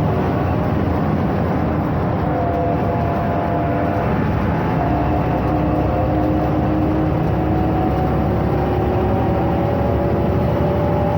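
Ikarus 260 bus's diesel engine running under way, a loud steady drone with whining tones that creep slowly upward in pitch.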